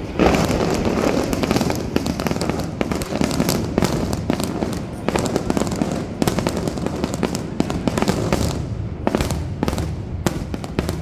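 Aerial fireworks display: shells bursting in rapid succession, a dense barrage of bangs and crackle over a continuous rumble.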